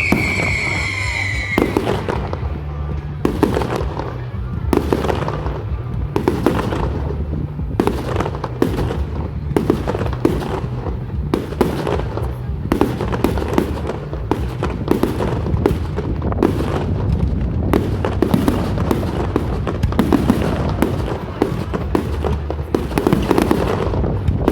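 Fireworks going off in rapid succession: many sharp bangs and crackles. In the first couple of seconds a firework whistle falls in pitch.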